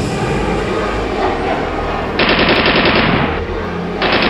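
Jet aircraft rumble, then, about two seconds in, a burst of very rapid automatic gunfire lasting about a second, and a second short burst near the end.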